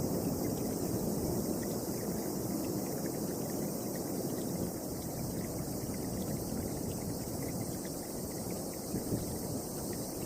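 Strong wind blowing in a steady, low rush that swells and eases slightly, as a storm approaches.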